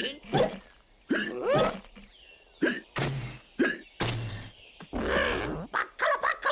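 Cartoon sound track of short, wordless character vocal noises (grunts and hiccup-like yelps) broken up by several sharp knocks and clicks, with a noisy burst about five seconds in.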